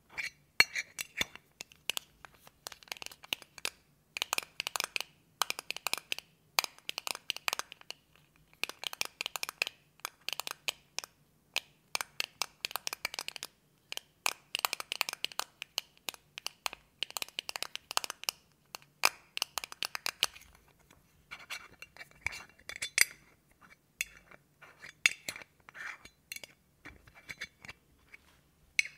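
Fingernails tapping, scratching and clicking on a small blue metal tin and its lid, close-miked, in quick clusters of sharp taps with short pauses between.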